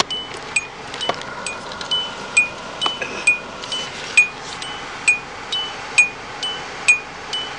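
A car's dashboard warning chime dinging steadily, a little over twice a second, each ding a quick two-note tone.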